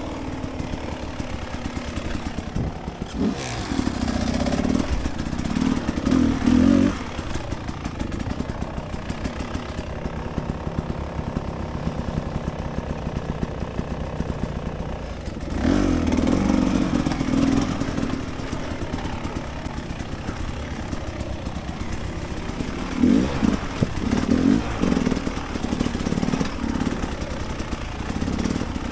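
Dirt bike engine running along a rough singletrack trail, the throttle rising and falling with three louder bursts of revving.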